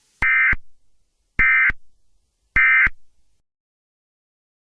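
Three short bursts of Emergency Alert System SAME digital data tones, each about a third of a second long and a little over a second apart. This is the end-of-message (EOM) code that closes an EAS alert.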